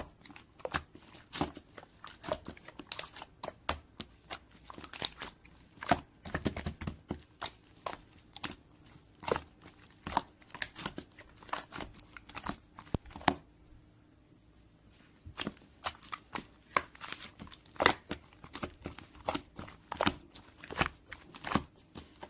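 Crunchy chewing: irregular crisp crunches and crackles, stopping for about two seconds just after the middle.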